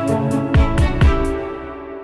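Background music with held instrumental tones and a steady drum beat, fading out over the second half.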